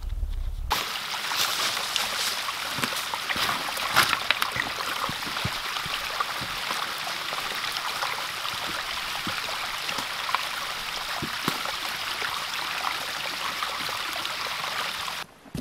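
Small rocky stream running over stones and a little cascade: a steady splashing, trickling babble. It starts abruptly about a second in and cuts off near the end.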